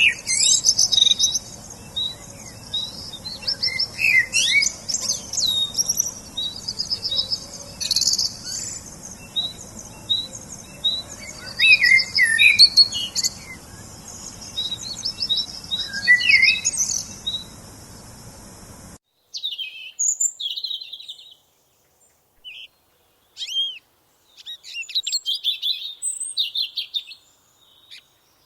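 Birds chirping and calling in many short, rapid high notes and trills over a steady background hiss. About two-thirds of the way through the sound cuts to a different, cleaner recording of scattered bird chirps with no background noise.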